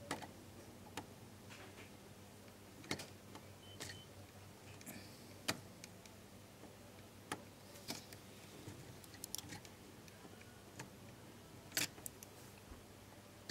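Scattered faint clicks and light rustles of an insulated wire being handled and pressed among plastic contactor terminals, irregular and spaced a second or so apart, over a faint low hum.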